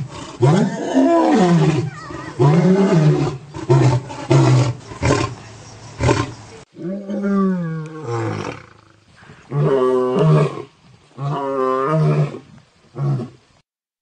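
Lion roaring: a string of deep roars, some long and some short, with pauses between them. It stops shortly before the end.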